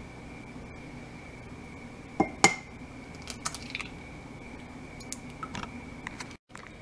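An egg knocked twice sharply against the rim of a glass jar to crack it, about two seconds in, followed by a few faint clicks as the shell halves are handled to separate the yolk.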